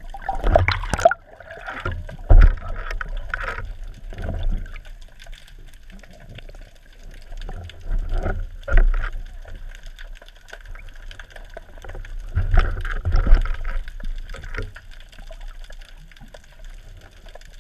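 Sea water sloshing and gurgling against a GoPro camera during a spearfishing dive, in irregular splashy bursts with a low rumble. The loudest bursts come near the start, about two and a half seconds in, about nine seconds in and about thirteen seconds in.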